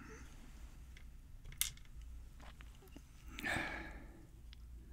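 Small metal lock parts being handled as a pin-tumbler lock is taken apart: one sharp click about one and a half seconds in, a few faint ticks, then a short scraping rustle about three and a half seconds in.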